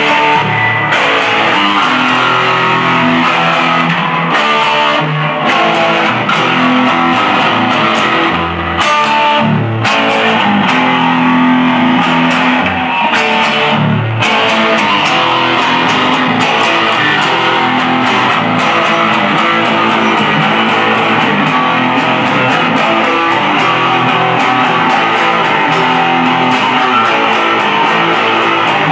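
Electric guitar played through an amplifier: a continuous run of notes and strummed chords at a steady level.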